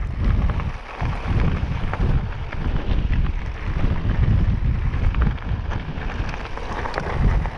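Wind buffeting the microphone in loud, gusting rumbles, with a few faint clicks.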